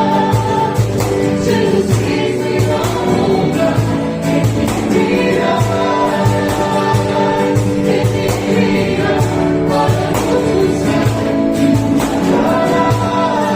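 Gospel worship song performed live: a group of voices singing with instrumental backing over a steady beat.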